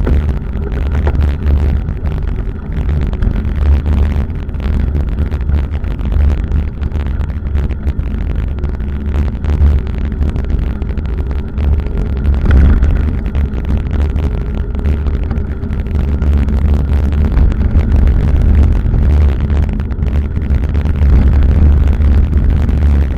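Steady low rumble of wind buffeting the microphone of a bicycle-mounted camera while riding, rising and falling in strength.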